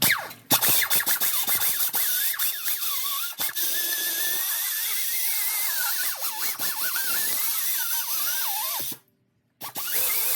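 Die grinder with an abrasive disc grinding rust off a steel exhaust pipe. Its whine wavers and dips as it bites into the metal. It stops suddenly near the end and starts up again about half a second later.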